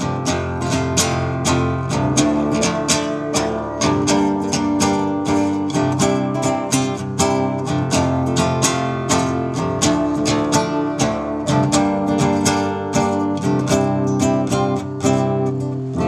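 Solo acoustic guitar strummed in a steady, even rhythm, about three strokes a second, with the chords ringing on between strokes and no singing.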